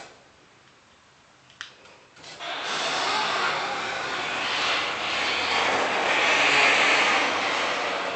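Genie 1022 belt-drive garage door opener: after a quiet pause and a single click, the opener starts about two seconds in and the garage door runs with a loud, steady mechanical noise.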